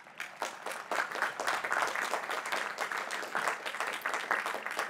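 Large audience applauding, a dense patter of many hands clapping that builds up just after the start and carries on steadily.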